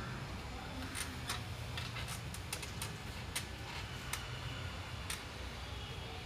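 About a dozen light, sharp clicks or taps at irregular intervals, over a steady low rumble.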